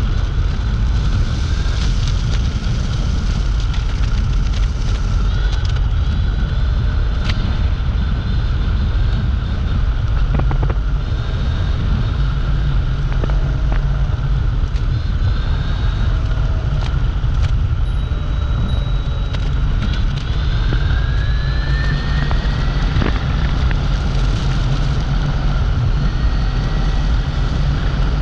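Dualtron Compact electric scooter ridden in the rain: a steady heavy rumble of wind on the microphone and tyre noise, with a thin motor whine that rises in pitch about two-thirds of the way through.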